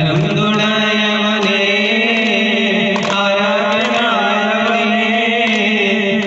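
Duff muttu group chanting Malayalam devotional verses in chorus over a steady held note, with a few sharp strikes on the duff frame drums.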